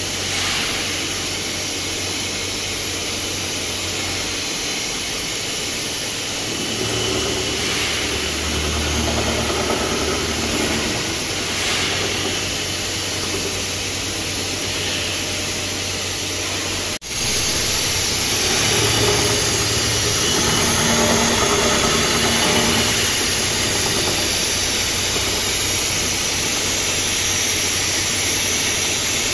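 CNC gantry milling machine with a right-angle milling head side-milling a cast iron casting: a steady machining noise of the spindle and cutter. It breaks off briefly just past halfway and comes back louder.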